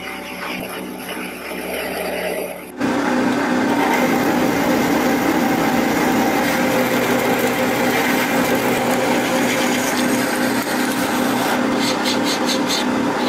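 Metal lathe machining a steel bolt: a steady turning sound at first, then, about three seconds in, a sudden loud, steady cutting noise as the end of the bolt is bored out. Near the end, quick rasping strokes as a file is held against the spinning part.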